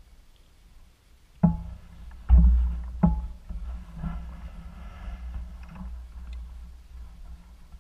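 Mountain bike clattering over a rough dirt trail. Sharp knocks come about a second and a half, two and a quarter, and three seconds in, followed by continuous rattling, over a steady low rumble.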